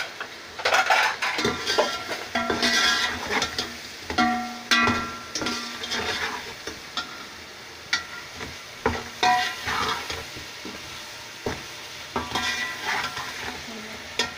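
A ladle stirring potato pieces through sizzling masala in a metal pot: repeated scrapes and knocks against the pot over a steady frying sizzle.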